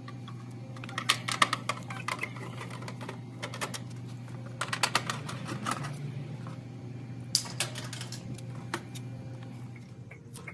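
Irregular small clicks and taps of hands handling wires and their terminals while labeling them on an air conditioner, over a steady low hum.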